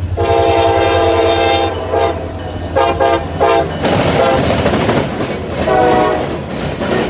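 Freight train locomotive horn sounding a long blast followed by several shorter ones, with another near the end. From about four seconds in, the loud rush of the fast train passing close takes over.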